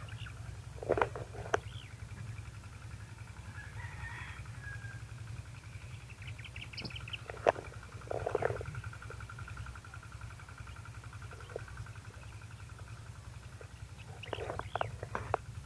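Open-field ambience: a steady low rumble of wind on the microphone under a faint, steady, high pulsing tone, broken by a few short, sharper calls or knocks about a second in, twice around the middle, and a cluster near the end.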